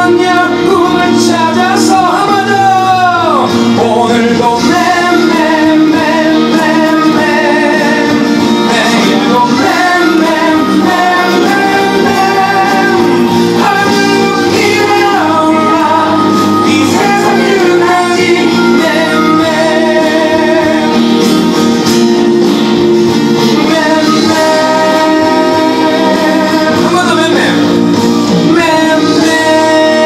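A man singing a song live into a microphone, with acoustic guitar and musical accompaniment, sung with vibrato and sliding pitch.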